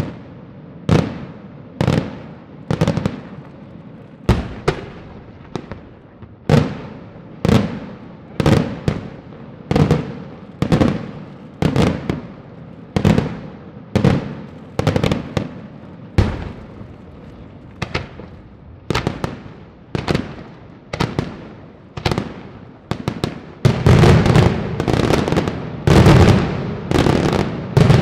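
Daytime aerial firework shells bursting in a steady series of sharp bangs, about one a second, each fading away behind it. Near the end the bursts pile up into a dense, rapid barrage of cracks and bangs.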